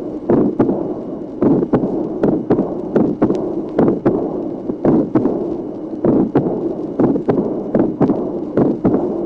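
Recorded heartbeat of a patient with pulmonary valve disease, beating about once a second: an early systolic ejection click, a mid-systolic pulmonary ejection murmur, a split second heart sound and a diastolic murmur of pulmonary regurgitation.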